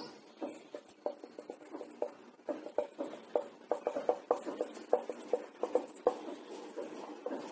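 Marker pen writing on a whiteboard: an uneven, quick run of short strokes and taps as letters and symbols are drawn.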